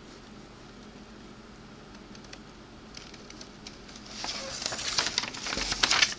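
Paper instruction sheets rustling and crinkling as they are handled and turned over, starting about two-thirds of the way in after a few quiet seconds with a few faint ticks.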